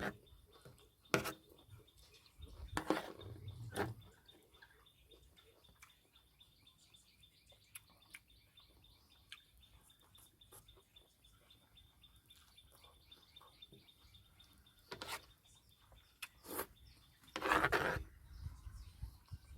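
Quiet eating with scattered short clicks and knocks and a longer rustle near the end, over faint bird chirping and a steady thin high tone.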